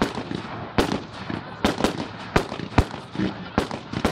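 Aerial fireworks bursting in a string of sharp bangs, about two a second at irregular spacing.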